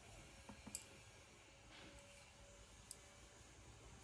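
Near silence with a few faint, short clicks.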